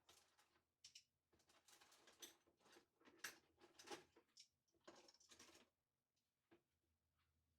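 Cutlery and small kitchen items being handled in a drawer: a run of light clicks, clinks and scrapes, stopping about six seconds in.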